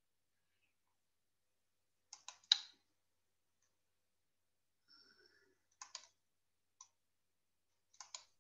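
A few sharp computer mouse clicks in small groups of two or three, with near silence between them.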